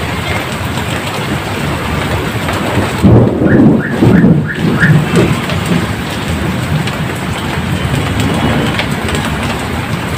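Heavy rain pouring steadily. About three seconds in, a loud low rumble of thunder lasts around two seconds.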